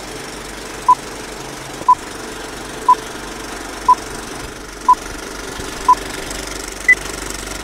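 Old film-leader countdown sound effect: six short beeps a second apart, then a single higher-pitched beep, over the steady clattering of a film projector.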